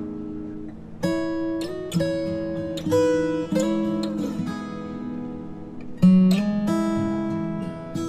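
Background score music led by acoustic guitar, with chords struck about a second in, at two, around three and a half, and loudest about six seconds in, each left to ring.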